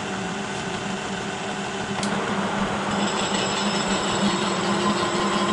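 Kearney & Trecker horizontal milling machine running, its milling cutter taking passes along a Delrin shaft: a steady machine hum, with a sharp click about two seconds in and a higher whine joining about a second later.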